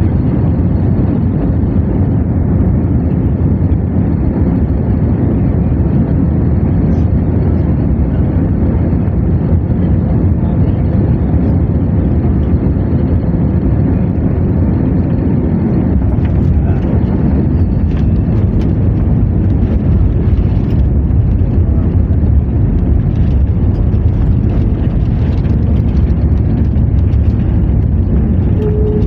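Airplane noise: a loud, steady low rumble that changes slightly in character about halfway through.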